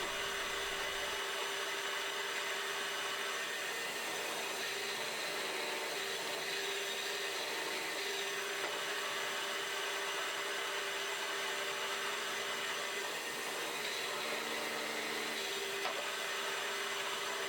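Steady whirring hum of a workshop machine's electric motor running, with a faint steady whine.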